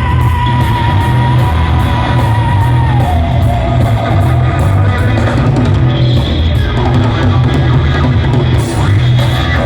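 Rock band playing live: loud electric guitar, bass and drums, with a held high note that drops in pitch about three seconds in.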